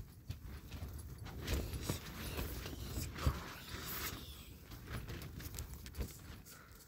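Handling noise from a covered camera carried while walking: irregular rustling, soft knocks and thumps, with a light jangle and footsteps.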